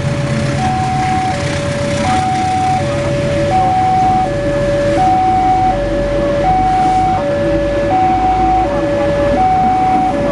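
Level-crossing alarm sounding a steady two-tone high–low pattern, switching about every three-quarters of a second, over the rumble of passenger coaches rolling past on the rails.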